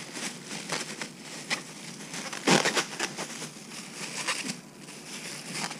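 Plastic bag worn over a hand crinkling and crackling as the hand tosses herbs and crawfish in a bowl. The crackles come irregularly, with the loudest burst about two and a half seconds in.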